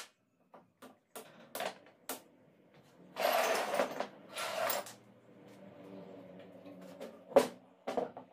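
Metal hand tools clinking, then scraping and clattering across a workbench top for about a second and a half as they are swept aside, followed by a sharp knock near the end and a smaller one just after.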